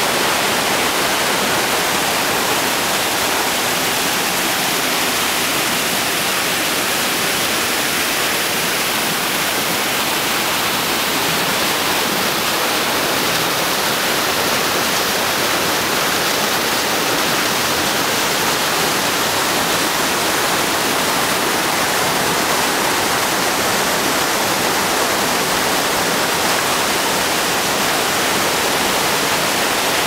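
Waterfall and the creek's rapids below it, a steady loud rush of water pouring and churning over rocks.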